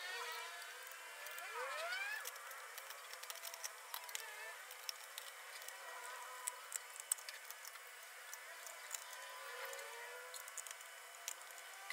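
Small scattered ticks and scratches of a toothbrush and pick working over motorcycle carburetor parts in a steel tray. A gliding background tone rises and falls, loudest about two seconds in.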